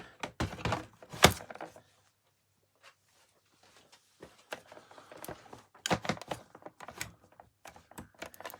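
Scattered clicks and knocks of small parts being handled, with one sharp knock about a second in, a pause of about two seconds, then more clicking.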